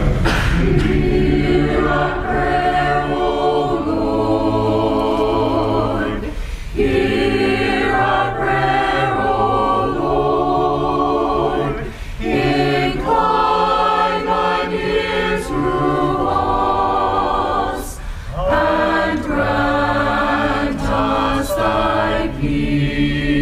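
Choir singing a slow sung prayer response in four phrases, with short breaks between them.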